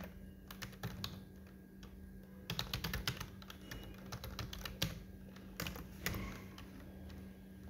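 Computer keyboard clicking as text is typed: scattered keystrokes at first, then quick, dense runs of keys from about two and a half seconds in.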